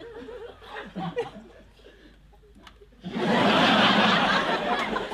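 A large audience laughing: after a quieter stretch with faint scattered voices, loud laughter breaks out about three seconds in and carries on to the end.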